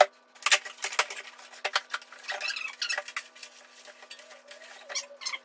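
Packaging being handled: cardboard box flaps and the plastic bag around a drum rustling and crackling in irregular bursts, with scattered knocks and a sharp knock at the very start, as the drum is lifted out of its shipping box.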